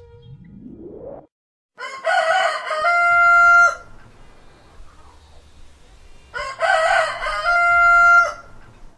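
A rooster crowing twice, each crow about two seconds long and ending in a long held note. A short rising sweep comes just before the first crow.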